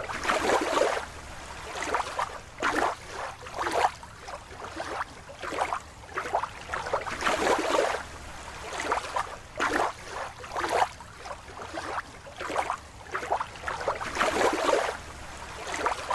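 Water splashing and sloshing in short, irregular bursts.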